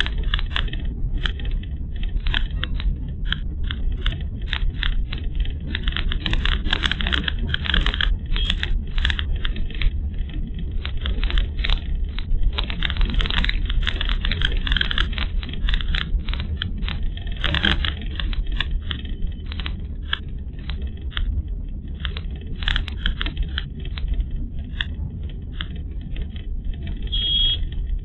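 Car driving on a rough road, heard from inside the cabin through a dashcam microphone: a steady low rumble of the tyres and engine with frequent crackling and rattling clicks, thickest in a few stretches.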